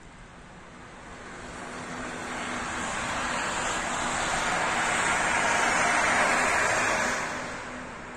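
A bus passing on a wet, slushy road: the hiss of its tyres and its engine swell over several seconds, peak, then fade away.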